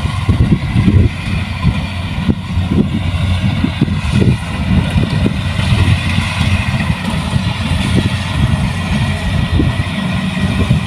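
Kubota rice combine harvester running steadily, its diesel engine and machinery giving a continuous drone with an uneven low rumble.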